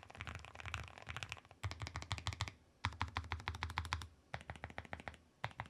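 Typing on a Chosfox Vero75 low-profile mechanical keyboard with an aluminium case and PBT keycaps: quick runs of keystrokes broken by short pauses. The clack is fairly quiet, deep and soft.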